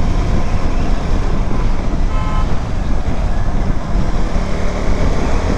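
Steady wind and road noise of a motorcycle ride in traffic, with a short horn toot about two seconds in.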